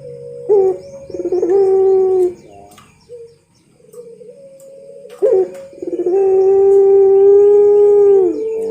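Puter pelung dove cooing: a short coo, then a long, drawn-out coo held steady for about two and a half seconds that drops in pitch as it ends. Small birds chirp faintly behind it.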